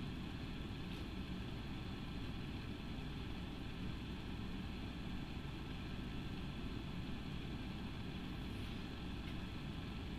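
Steady low room hum with no distinct events.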